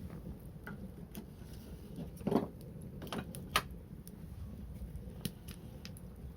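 Wood fire crackling, with irregular sharp pops over a low rumble; the loudest pops come about two and three and a half seconds in.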